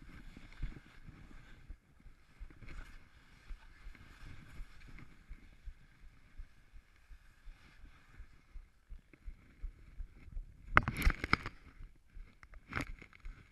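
Skis sliding and turning down a steep chute of loose snow, a steady scraping hiss with many small knocks. Near the end come two louder scraping bursts, the first about a second long, the second shorter.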